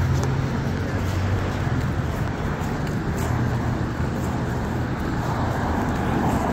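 City street traffic: a steady wash of road noise with the low hum of car engines.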